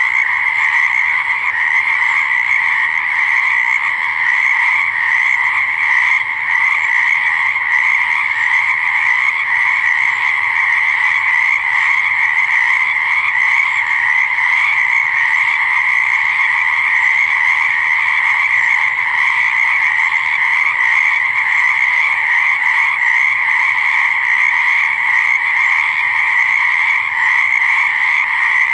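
A chorus of many frogs calling together, a dense, steady, unbroken sound with no pauses.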